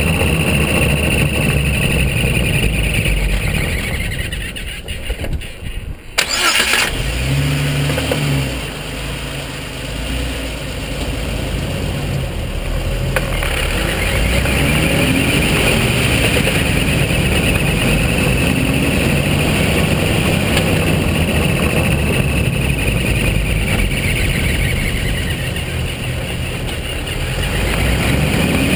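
2005 Jeep Wrangler Unlimited Rubicon's 4.0-litre straight-six driving on the road; the noise falls away briefly while coasting, then about six seconds in the engine is restarted with a sharp burst and the Jeep drives on with steady engine and road noise.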